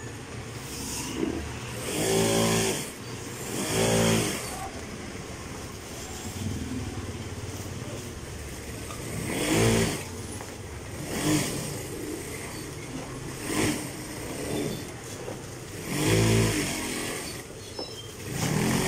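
Juki industrial sewing machine stitching the edge binding onto a tarpaulin, running steadily. Engines of passing vehicles rise and fall over it about five times and are the loudest sounds.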